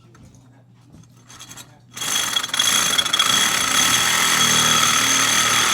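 A power tool starts about two seconds in and runs at a steady speed, a loud whine with several high steady tones.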